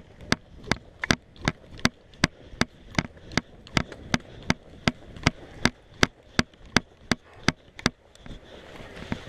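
Sharp clicks at an even pace, about three a second, stopping about eight seconds in.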